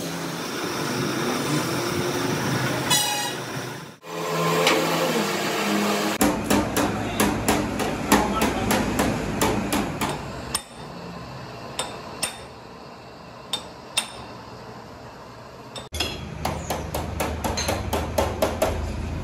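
Small hammer tapping on the metal tank of a truck radiator, in quick runs of several sharp taps a second, with a few single knocks in a quieter stretch in the middle.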